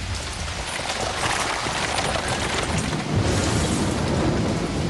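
Cartoon soundtrack of steady heavy rain with low rumbling, under background music.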